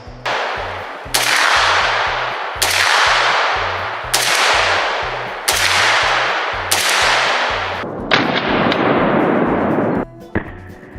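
Arsenal SLR-107FR AK-pattern rifle in 7.62x39mm fired in aimed single shots, about one every second and a half, each shot ringing out in a long echoing tail.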